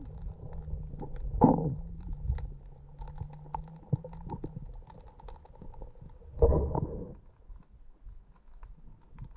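Underwater sound picked up by an action camera in its waterproof housing: a low rumble of moving water with many faint scattered ticks. Two louder brief rushes of water come about a second and a half in and again about six and a half seconds in.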